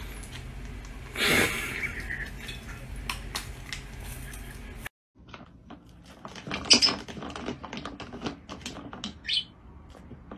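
Scratchy brushing from a toothbrush held by an African grey parrot, with a louder rasp about a second in. After a short break, the plastic swing lid of a bin clacks and rattles repeatedly as a lovebird pushes it, with a few short high chirps.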